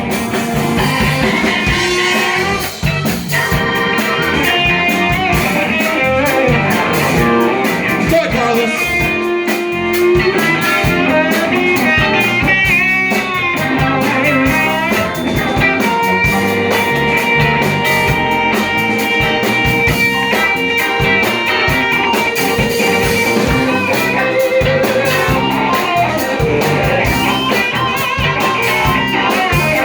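Live blues-rock band playing an instrumental break: a lead guitar solo with bent and long held notes over bass and drums.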